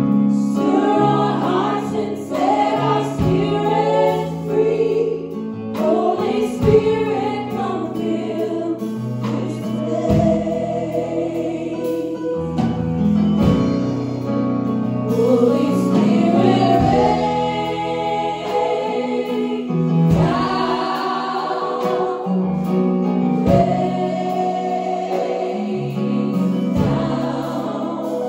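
Small mixed group of women's and a man's voices singing a gospel worship song in harmony into microphones, with electronic keyboard accompaniment.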